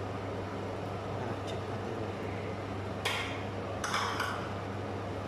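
Metal spoon stirring a pot of chicken stew in a stainless steel pot, with brief scrapes and clinks against the pot about three seconds in and again about a second later, over a steady low hum.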